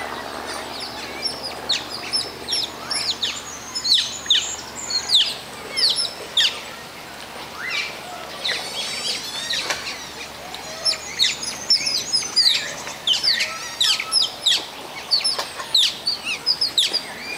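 Asian short-clawed otters giving many short, high-pitched chirps, each one sliding down in pitch, in quick overlapping clusters with a thinner spell about halfway through. This is the otters' begging call for food.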